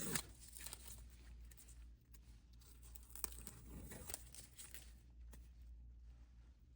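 Faint scattered clicks and rustles over a low steady hum.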